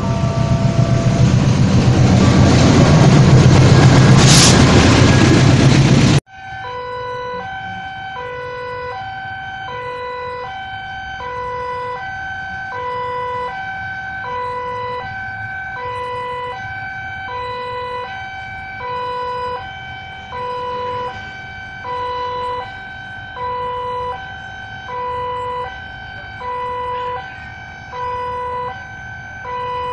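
A diesel-locomotive-hauled passenger train passes close by with a loud rumble that peaks about four seconds in, with a brief squeal near the peak. The sound then cuts off abruptly. After that, an electronic two-tone warning alarm alternates steadily between a low and a higher tone, each about half a second long.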